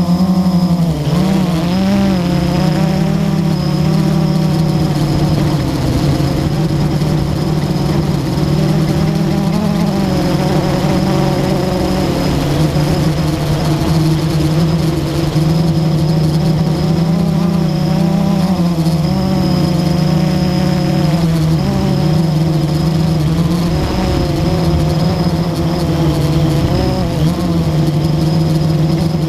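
Blade 350 QX quadcopter's motors and propellers buzzing steadily in flight, heard up close from the camera on board, the pitch wavering up and down as the throttle changes.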